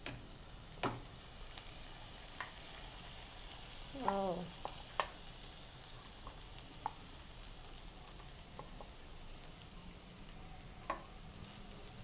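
Faint steady sizzling of rice noodles and vegetables in a nonstick pan, with scattered light clicks and scrapes from a steel bowl and spatula as the noodles are tipped in and stirred. A brief pitched sound comes about four seconds in.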